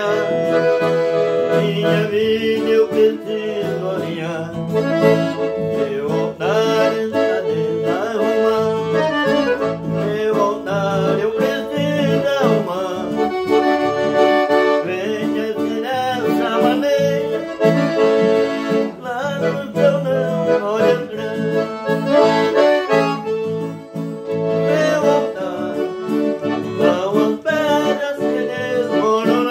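Piano accordion playing a hymn tune, with held chords under a moving melody, over a strummed acoustic guitar accompaniment.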